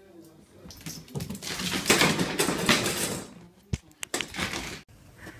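A loud clattering, scuffling commotion for about two seconds, followed by a single sharp knock.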